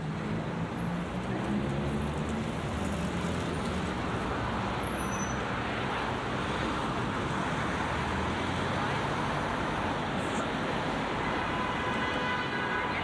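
Steady road traffic on a busy multi-lane city road, cars and vans driving past. The low hum of a nearby vehicle engine stands out in the first few seconds.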